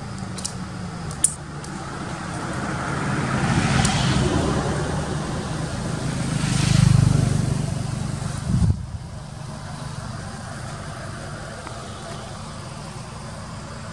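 Road vehicles passing close by: tyre and engine noise rises and falls about four seconds in, then a louder pass about seven seconds in whose engine hum drops away abruptly just before nine seconds. A couple of sharp clicks in the first second or so.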